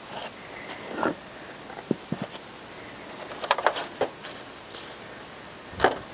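Plastic planter tiers and nursery pots being handled and set down on a table: a scattering of light knocks and clicks, with a quick run of them about halfway through and the loudest knock near the end.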